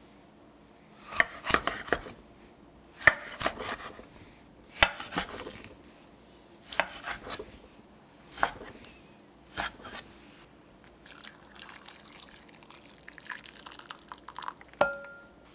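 Chef's knife cutting raw mackerel into chunks on a wooden cutting board: six groups of two to four sharp strokes as the blade goes through the fish and knocks the board. Hot water is then poured into a glass bowl, and near the end a sharp clink on the glass rings briefly.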